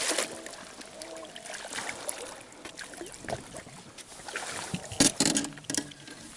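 Water splashing and sloshing beside a small fishing boat as a hooked smallmouth bass is fought to the side, with a flurry of sharp splashes about five seconds in.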